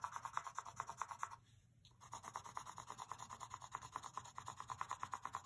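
Colored pencil scribbling on paper, shading in a square with quick back-and-forth strokes, about six or seven a second. There is a short pause a little over a second in, then the scribbling resumes.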